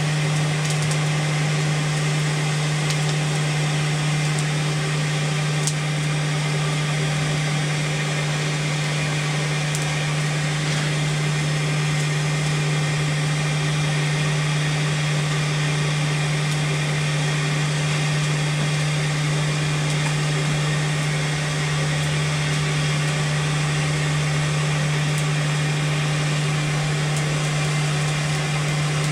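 Forge blower motor running steadily: a low hum under a broad, even hiss.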